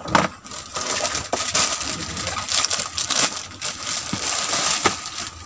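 Clear plastic saree packaging crinkling and rustling as it is handled, with a few sharp clicks.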